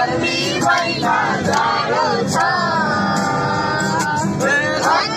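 Several people singing loudly together to a strummed acoustic guitar, with one long held note in the middle.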